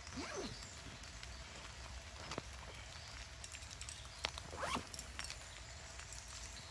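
A zip on a camouflage backpack pouch being pulled open with a quick scraping zip, followed by a few sharp clicks and a second zipping scrape a little after halfway as a bundle of cord is pulled out.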